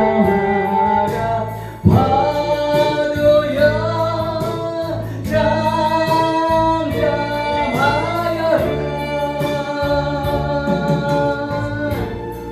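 Gospel song: sung vocals with choir-like backing over instrumental accompaniment, holding long notes.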